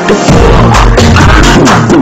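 Loud electronic dance music with a heavy bass beat, which drops out for a moment and comes back in about a quarter second in, over repeated falling synth sweeps.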